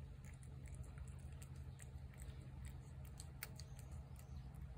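A cat chewing and eating food off a plate: faint, irregular soft clicks and smacks, over a steady low hum.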